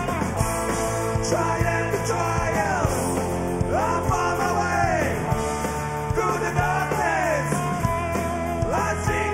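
Rock band playing an instrumental passage: electric guitar lead with bending notes over steady bass and drums.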